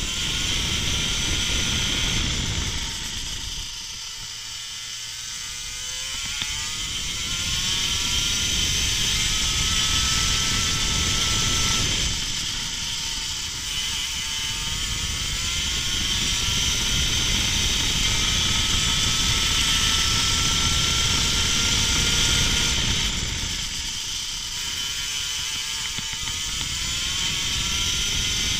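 Racing kart engine at full throttle, its revs climbing slowly along the straights and falling away three times as it slows for corners, with wind rushing over the onboard microphone.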